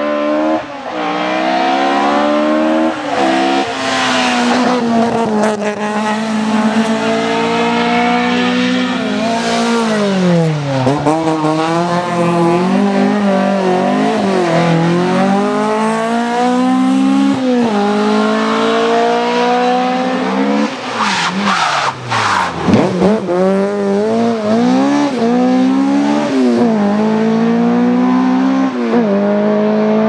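Opel rally car engines at full throttle, revving up and dropping through gear changes over and over as the cars drive hard through a stage. A few sharp cracks come about two-thirds of the way through, where the engine note falls right away.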